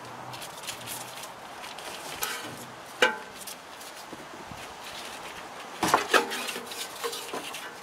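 Metal fuel rail and injectors from a Jeep Cherokee XJ 4.0-litre six clinking and knocking against engine parts as they are worked out by hand through the hoses and wiring. There is light rattling throughout, a sharp ringing knock about three seconds in, and two louder knocks close together about six seconds in.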